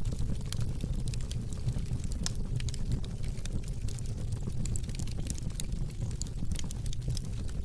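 A fire burning: a steady low rush of flame with frequent small crackles and pops scattered throughout.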